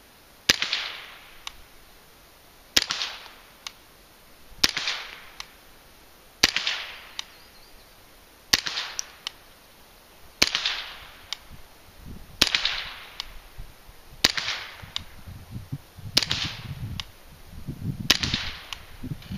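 Suppressed .22 Long Rifle shots from a semi-automatic Ruger 10/22 short-barreled rifle fitted with a Sparrow suppressor: ten single shots about two seconds apart, each a sharp crack with a short fading tail, with a fainter click after several of them.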